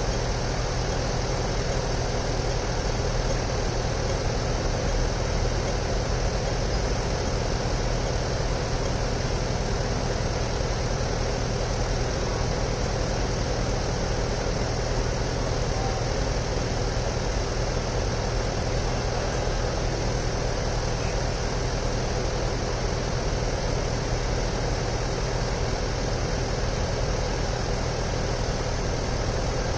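Engine idling steadily: a constant low hum that does not change.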